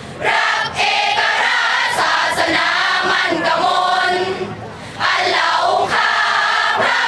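A large student cheering section singing a cheer song together in unison, breaking off briefly a little past four seconds in and then picking up again.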